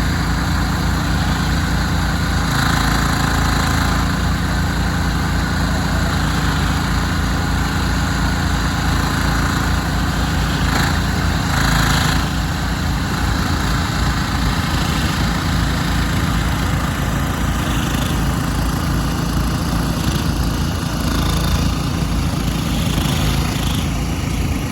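Shanding SD12D mini excavator's small diesel engine running steadily. A brief higher hiss joins in about three seconds in and again about eleven seconds in.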